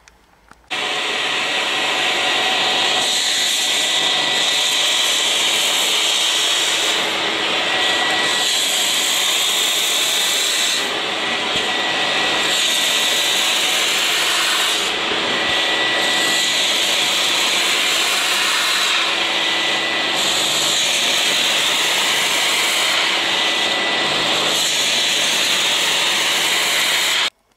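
Spray-extraction washing vacuum cleaner running loudly, its nozzle drawn over fabric upholstery, with the suction noise shifting every four seconds or so as the strokes go. It starts about a second in and is switched off just before the end.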